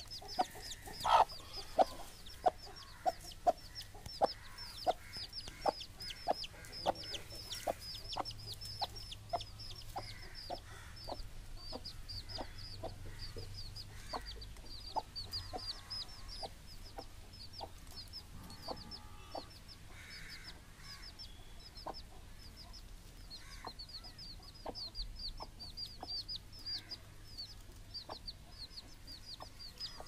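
A mother hen clucking softly and regularly, about two clucks a second, louder in the first half and sparser later, the low brooding cluck a hen uses to keep her chicks close. Her black chicks peep constantly over it in high, quick, falling notes.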